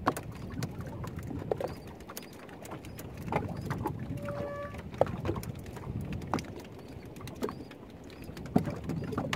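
Water lapping against the hull of a small wooden fishing boat, with scattered light knocks and clicks, and a brief pitched squeak about four and a half seconds in.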